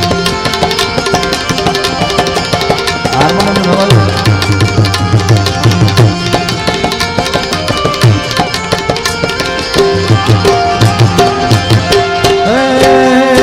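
Instrumental interlude of Indian devotional music: tabla playing a quick rhythm, with low bass-drum strokes that bend in pitch, under a melody instrument holding notes. Near the end a new wavering melody line comes in.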